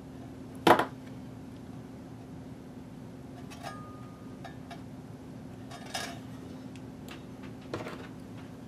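A few sharp metallic clinks and clacks of small hand tools being handled and set down on a workbench, the loudest under a second in and three softer ones later, over a steady low hum.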